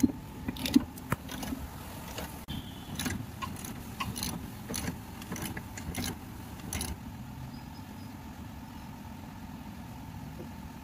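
Steel hand tools clinking and a socket wrench working on bolts under a car: a run of sharp, irregular metal clicks over the first seven seconds or so, over a steady low rumble.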